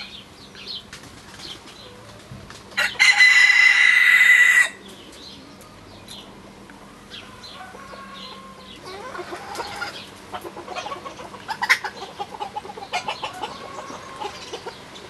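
A domestic cockerel crows loudly once, about three seconds in, the crow lasting nearly two seconds. Around it, hens perched in a tree give soft, short clucking and chattering calls, thickening in the second half.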